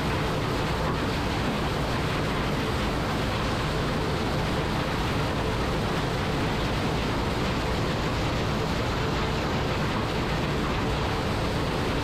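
New Holland CR9060 combine harvester working in corn: a steady, unbroken machinery din with a faint steady hum running through it.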